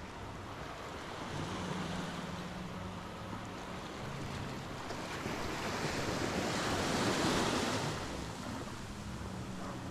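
Sea surf washing onto a sandy beach: a wave swells, is loudest about seven seconds in, then fades as it runs out.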